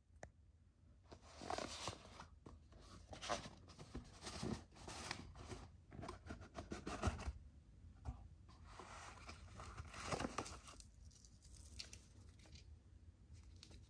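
Cardboard packaging handled by hand: a box slid out of its sleeve and opened, with irregular scraping and rustling of cardboard.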